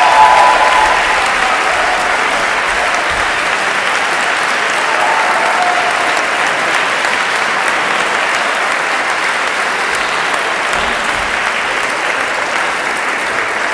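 Audience applauding, a dense steady clapping that is loudest at the very start and then holds at a slightly lower level.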